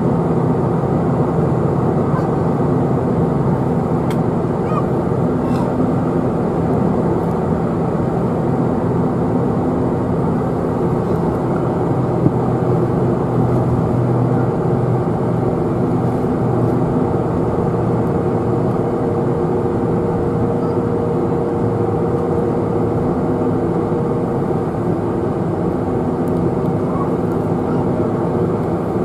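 Steady engine drone heard inside the cabin of a Boeing 747-400 as it taxis, its GE CF6-80C2 engines at low power, with a few low tones held steady through the hum.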